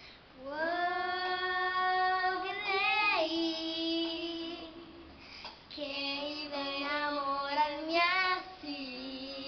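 A young girl singing over backing music: two long held phrases, each ending in a wavering rise in pitch.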